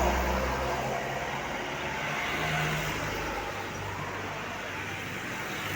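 A passing bus's engine runs with a low hum over road and traffic noise, growing gradually quieter.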